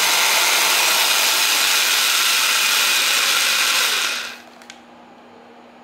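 Rockwell 4150J1 3/8-inch corded drill running free with no bit, held steady on its variable-speed trigger. The trigger is released about four seconds in and the motor stops.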